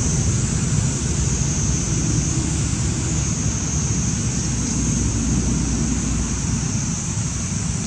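Wind buffeting the microphone outdoors, a steady low rumble, with a steady high hiss above it.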